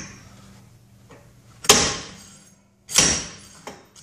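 Homemade slide hammer (a woofer magnet sliding on a long carriage bolt) striking hard twice, a little over a second apart, each a sharp metallic whack with a short ringing tail, followed by a lighter knock. The hammer is driving the rear drive hub (stub axle) out of a Porsche 914's bearing housing.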